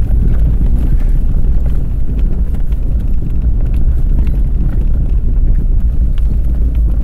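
Car driving over a snow-covered track, heard from inside the cabin: a loud, steady low rumble with scattered light clicks as the car shakes over the packed snow.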